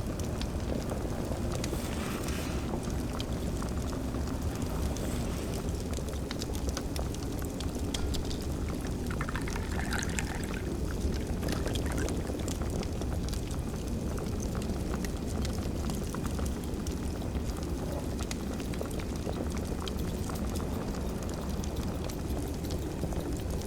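Cottage kitchen ambience: a wood fire crackling with scattered small pops over a steady low rumble, with faint baking sounds mixed in.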